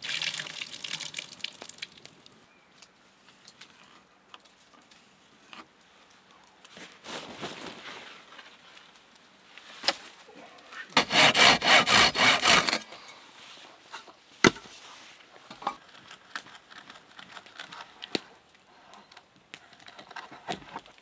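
Hand saw cutting wood in a quick run of strokes, about four or five a second for nearly two seconds, between scattered knocks and scrapes of wood being handled.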